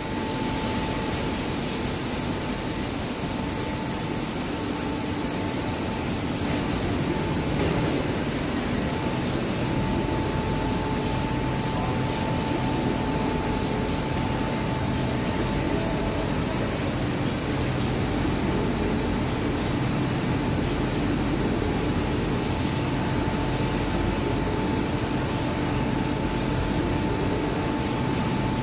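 Steady machinery and airflow noise of an automatic reciprocating spray-painting line for wood panels, with the spray booth's air extraction running. A constant high whine sits over the even rush of air.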